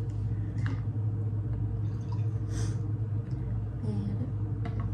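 A drink being poured from a plastic bottle into a glass, with a few small clicks of bottle and glass handling, over a steady low hum.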